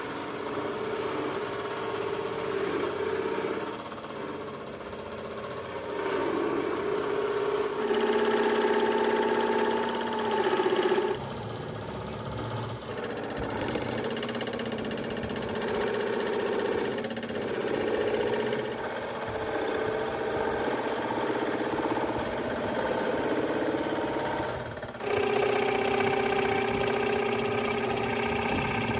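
Makita scroll saw running, its reciprocating blade cutting through paper-covered plywood with a steady motor hum. The level jumps up and down abruptly a few times.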